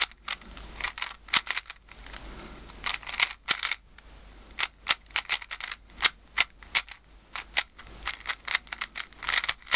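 MoYu AoLong V2 GT 3x3 speedcube being turned fast through a solve. Its loosely tensioned plastic layers click and clack in rapid bursts with short pauses between them.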